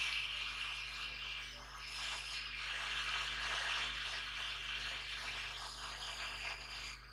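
Hot-air rework gun blowing a steady hiss of hot air onto a laptop motherboard to desolder a shorted capacitor, which is being eased off with tweezers.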